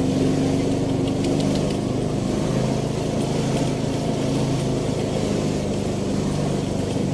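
Small motorbike engine running at low, fairly steady speed while riding, its pitch dipping and rising slightly a few times.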